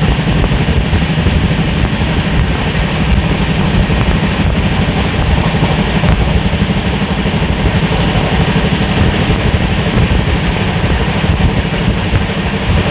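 Express passenger train coach running at speed, heard from beside the coach doorway: a loud, steady rumble of wheels on the track mixed with rushing air.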